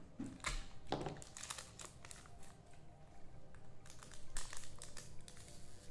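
Trading-card packaging crinkling in irregular bursts as cards are handled, with a couple of louder crackles about a second in and just past four seconds.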